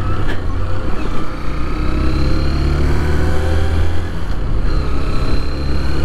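Motorcycle engine running steadily as the bike rides along, a continuous low drone with faint slowly rising tones as it pulls.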